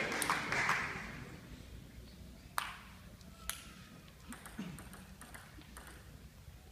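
Table tennis ball clicking: two sharp clicks of the ball, then lighter ticks of ball on bat and table as a rally gets going. Hall noise fades away over the first second.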